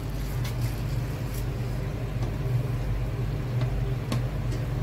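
Steady low hum of running machinery with a faint background hiss, broken by a few faint taps or clicks.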